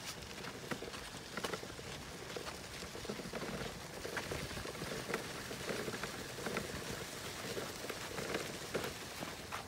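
Footsteps and stroller wheels crunching over a dry dirt trail covered in pine needles: a steady run of small, irregular crunches and ticks.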